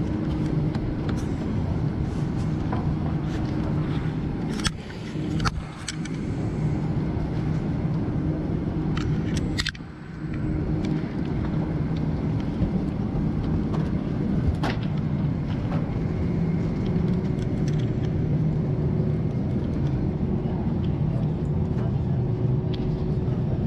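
Steady ventilation hum in a parked Boeing 747-400's cabin, with scattered clicks and knocks from passengers getting off. The hum drops briefly twice, about five and ten seconds in.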